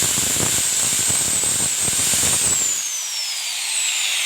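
Handheld electric tile cutter with a freshly replaced bearing running free at full speed with a high whine, then switched off about two seconds in and winding down, its whine falling steadily in pitch. It is a test run after the bearing replacement, checking that the blade no longer wobbles.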